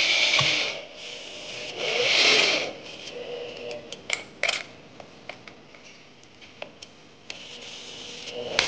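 Two short scraping rubs of hand tools on the metal door-lock hardware, followed by scattered light clicks and taps as the screws and lock parts are handled.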